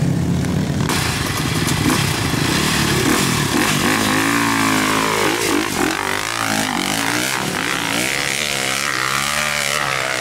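Off-road trail motorcycle engines revving hard, their pitch rising and falling over and over as the throttle is worked on a steep climb.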